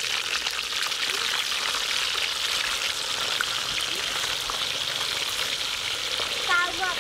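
Whole fish deep-frying in hot oil in a wok: a steady, crackling sizzle.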